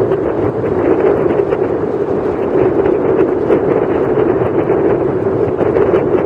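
Wind blowing across the camera microphone: a steady, loud rushing noise that flutters constantly, with no engine note in it.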